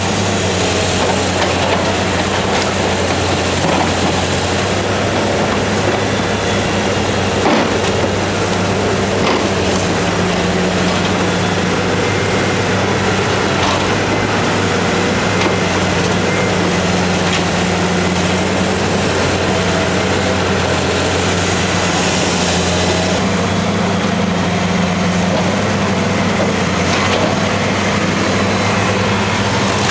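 Caterpillar 330B L demolition excavator's diesel engine running steadily under load as it works a sorting grab against a house's masonry, with a few short knocks of breaking wall and debris.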